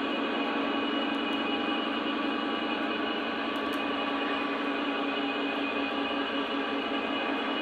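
Model train running on its layout track: a steady hum with a whine from the locomotive's electric motor and the cars' wheels rolling on the rails.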